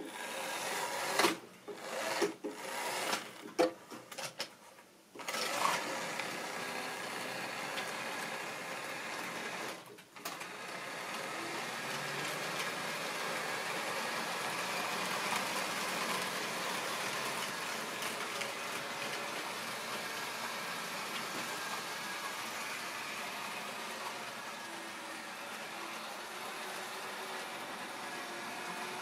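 A few sharp clicks and knocks as model rolling stock is handled and set on the track, then a model railway train running steadily: the small electric motor's hum with wheel noise on the rails, briefly dropping away about ten seconds in.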